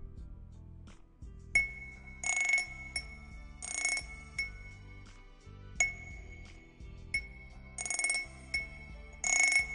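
Metal wind chimes struck in a rhythm over background music with a low bass line. From about a second and a half in, single bright strikes ring on one high note, and four louder shimmering chime rattles come among them.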